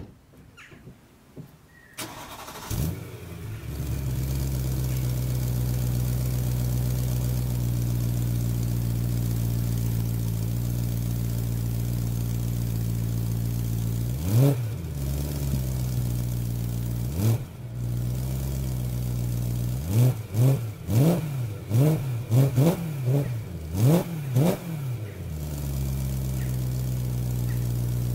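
BMW E93 M3's 4.0-litre V8, fitted with a dual Guerrilla bypass exhaust, starting and settling into a steady idle. It is then revved twice on its own, then blipped in a quick string of revs before dropping back to idle.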